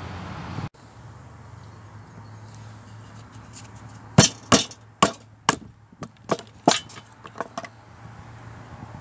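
Knife being driven down through a stick of fatwood onto a wooden board to split it for kindling: a quick run of sharp knocks starting about four seconds in, the later ones lighter.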